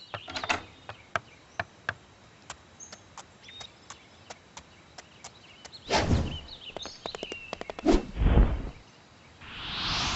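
Cartoon sound effects: a light birdsong ambience with scattered short clicks and chirps, then a loud whoosh about six seconds in as a flying pony streaks past, a heavy low rush around eight seconds, and a swelling whoosh near the end as it flies off into the sky.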